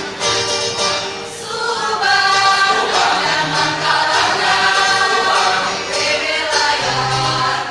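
Adult choir of school teachers singing in harmony, holding long notes that change every second or so.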